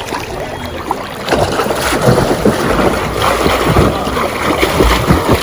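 Water splashing and sloshing close to the microphone as a child swims, growing louder and busier about a second in.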